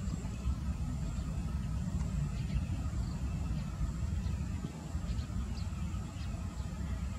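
Low, steady rumble of the Airbus A321's jet engines as the airliner climbs away after takeoff, easing off slightly near the end.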